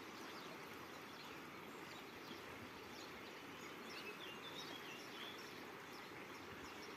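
Steady rush of a fast, shallow river running over rapids, with a few faint bird chirps about halfway through.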